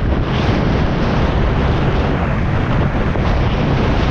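Steady wind rush on a helmet-mounted action camera while riding at road speed, with a Royal Enfield Shotgun 650's 648 cc parallel-twin engine running underneath.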